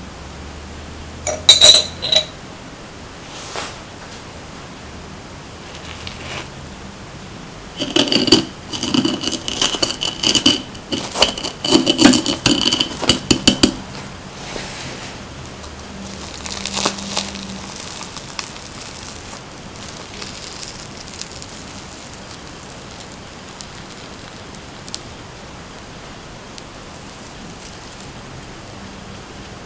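Metal spoon clinking against a ceramic plate: two sharp, ringing clinks about two seconds in, then a quick run of taps and clinks from about eight to fourteen seconds in. After that there are only faint, soft handling sounds.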